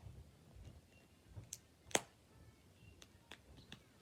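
Faint clicks and crinkles of plastic wrap being picked at and peeled on an L.O.L. Surprise toy ball, with one sharper click about two seconds in.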